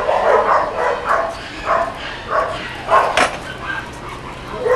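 Dog barking repeatedly in short barks, with a sharper, louder one about three seconds in.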